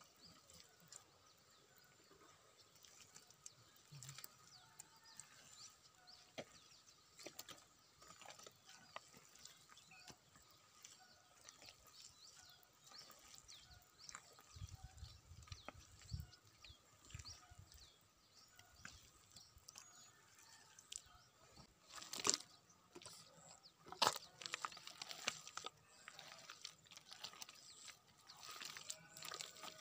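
Faint wet squelches and plops of hands digging and scooping through thick mud, with two louder slaps about 22 and 24 seconds in.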